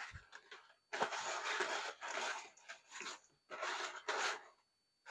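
Dry linguine and its cardboard box being handled: a few bursts of dry rustling and crunching, the longest about a second.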